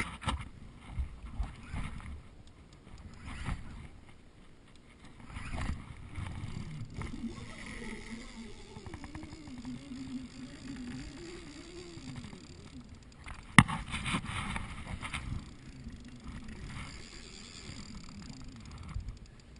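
Close-up knocks and rubbing from hands working a spinning rod and reel while playing a large wels catfish from a float tube, with one sharp click about two-thirds of the way through as the loudest sound.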